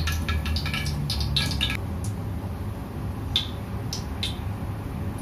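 Cooking oil poured from a plastic bottle into an empty wok, with crackles of the squeezed bottle and the pour, stopping about two seconds in. After that a steady hiss with a few light clicks, while the oil heats in the wok.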